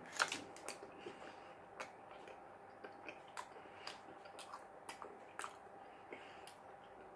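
A person chewing a mouthful of Subway sandwich with the mouth closed: soft, irregular wet smacks and clicks, over a faint steady hum.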